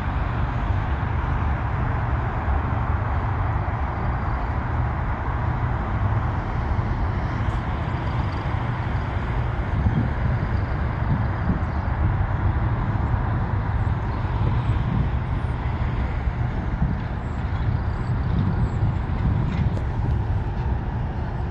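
Steady rumble of road traffic, with no single event standing out.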